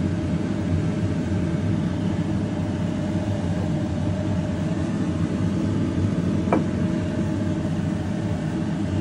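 Gas burner running under an enamelled cast-iron pot, a steady low rumble with a faint even hum, as the water left in the pot is heated off. A brief tick about six and a half seconds in.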